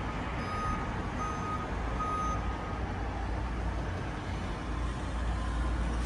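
Vehicle reversing alarm beeping three times at an even pace, one beep a little under every second, then stopping, over a steady low engine rumble.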